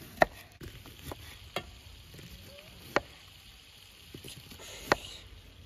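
Kitchen knife slicing an onion into rings on a wooden cutting board: four sharp knocks of the blade striking the board, about a second and a half apart, with softer cutting clicks between them.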